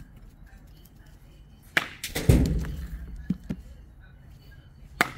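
Bat striking a baseball with a sharp crack about two seconds in, followed half a second later by a heavier thud. Another sharp crack near the end.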